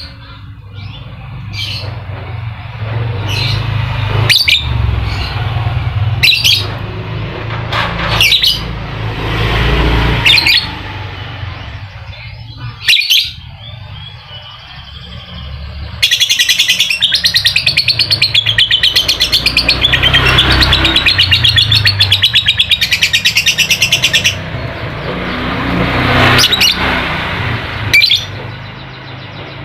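Lovebird chirping in sharp single calls, then breaking into a long, fast chattering trill, the 'ngekek', that runs about eight seconds before it goes back to chirps. A low rumble sits underneath.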